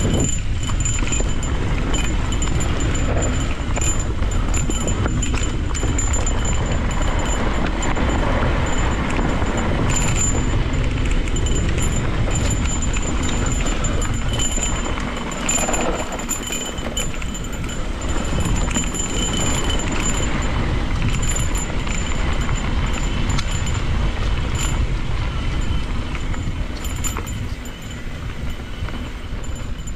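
Cannondale Scalpel full-suspension mountain bike descending a fast dirt trail: wind rushing over the microphone, with tyres on dirt and the bike clattering and rattling over bumps and roots.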